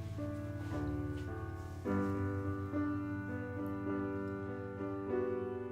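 Background film score: slow piano music with sustained notes and new chords struck about two and five seconds in.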